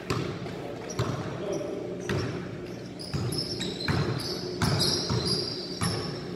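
Basketballs bouncing on a hard court floor: irregular sharp thuds, about one or two a second, with short high sneaker squeaks in the second half.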